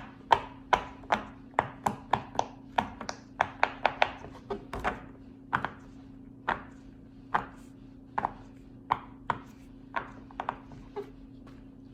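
Silicone pop-it fidget toy being pressed bubble by bubble: a run of sharp little pops, quick at first at about three a second, then slower and more spaced out in the second half.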